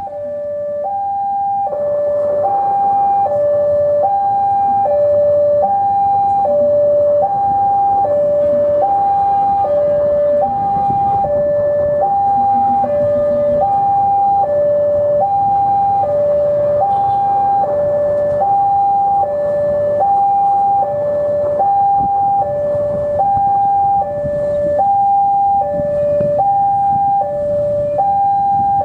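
Railway level-crossing warning alarm sounding a steady two-tone hi-lo wail, switching pitch about once a second, fading in over the first couple of seconds. A low rumble runs underneath.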